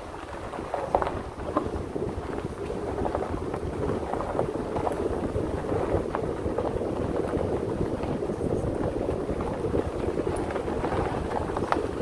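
Ford F-150 pickup truck driving slowly on a dirt road: a steady rumble of engine and tyres on the dirt, with wind on the microphone and scattered small ticks and knocks from stones and bumps.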